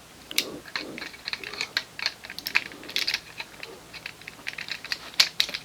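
Hard plastic Transformers Combiner Wars toy parts clicking and snapping as a limb is tabbed into the combined robot: a run of irregular sharp clicks, with one louder snap about five seconds in.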